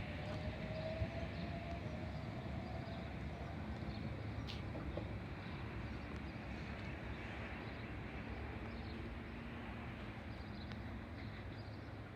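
Electric multiple unit train pulling away and receding, its running noise a steady rumble that slowly grows quieter, with a faint rising whine at the start.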